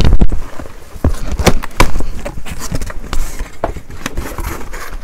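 Cardboard box being opened and handled by hand: a quick string of knocks, scrapes and rustles of cardboard and packing.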